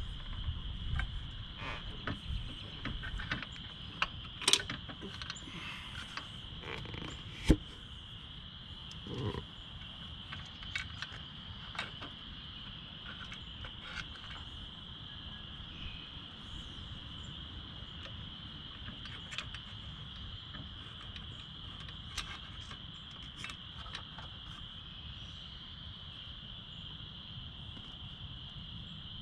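Steady, high-pitched insect chorus throughout. Over it come scattered metallic clicks and taps from hand tools and bolts being worked into a steel motorcycle crash bar. One sharp click stands out about seven seconds in.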